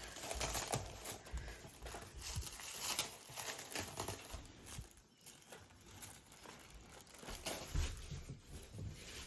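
Paper or plastic packing being crumpled and torn by hand, in irregular crinkling bursts.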